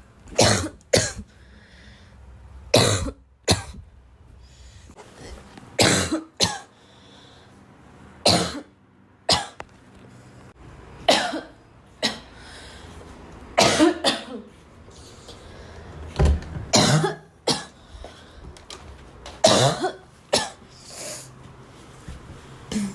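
A girl coughing over and over: short, hard coughs, often in pairs, coming every two to three seconds.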